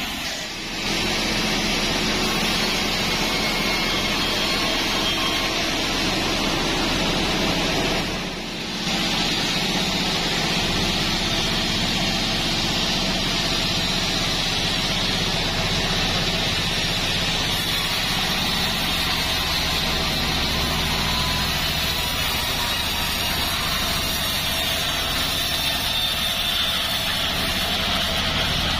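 Band sawmill running with its blade cutting lengthwise through a joar log: a steady mechanical drone. The sound dips briefly twice, once near the start and again about eight seconds in.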